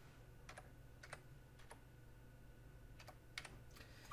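Faint keystrokes on a computer keyboard, a handful of separate taps at uneven intervals, as a number is typed into a field.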